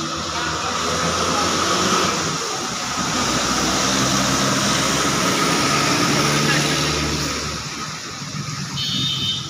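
Steady rain hissing on a wet road as a truck drives past, its engine running low and its tyres swishing through the water, loudest in the middle and fading after about eight seconds.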